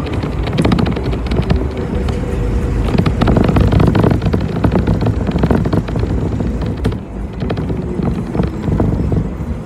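City bus driving: a steady low rumble of engine and road with a dense clatter of rattles throughout, a little louder in the middle.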